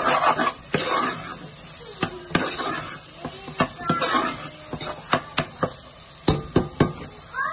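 Metal spoon stirring prawns through a thick, frying onion-and-spice masala in an aluminium pot, scraping the sides and bottom over a soft sizzle. In the second half the spoon knocks against the pot in a string of sharp clinks.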